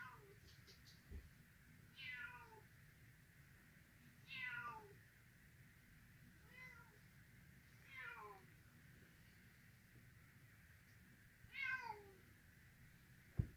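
Silver Bengal kitten meowing: six high, thin meows, each falling in pitch, coming about every two seconds.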